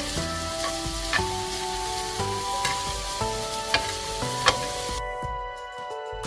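Food sizzling in a frying pan, with a few sharp clicks of a utensil against the pan, over background music. The sizzling cuts off about five seconds in, leaving the music.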